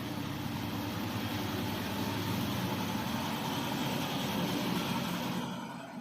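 Steady engine rumble with a wide hiss, like a motor vehicle running, that fades away about five and a half seconds in.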